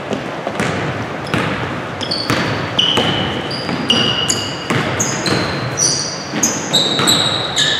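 Basketball shoes squeaking on a hardwood gym floor, many short high squeaks about two a second, with the thuds of a dribbled ball echoing in the gym.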